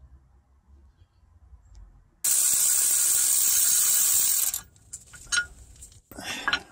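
Power ratchet spinning out a bolt: a steady hissing whir that starts suddenly about two seconds in and cuts off about two and a half seconds later, followed by a few light metallic clinks.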